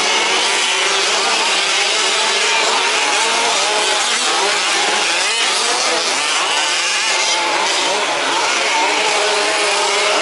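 Several 1/5-scale RC trucks' small two-stroke petrol engines buzzing and revving together as they race, their pitches rising and falling as they accelerate and back off.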